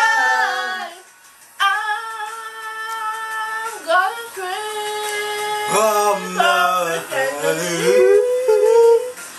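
Female voices singing karaoke with ice cubes in their mouths, the lyrics garbled into long held, wavering notes. The singing breaks off briefly about a second in and then resumes.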